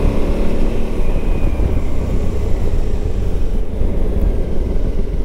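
KTM 990 SMT's V-twin engine running steadily as the motorcycle is ridden along, with heavy low wind rumble on the microphone.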